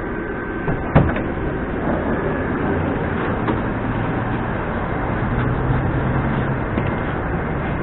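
Metro platform bustle as passengers step off a standing train: steady noise of the train and moving people, with a sharp knock about a second in and a low steady hum from the stopped train in the second half.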